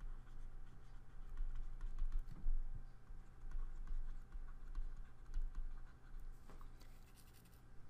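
Stylus tapping and scratching on a graphics tablet as words are handwritten: a run of small, irregular clicks over a steady low hum.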